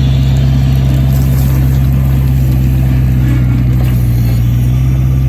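Skid steer engine running steadily at constant speed, loud and close, with a low, unchanging drone.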